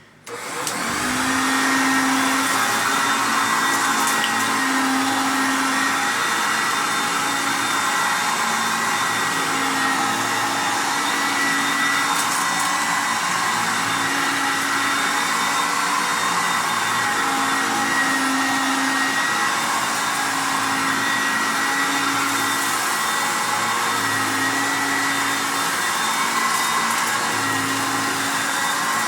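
Hoover Concept One U3105 vacuum cleaner switched on, its motor spinning up over the first couple of seconds to a loud steady whine. A lower hum swells and fades every second or two while it runs.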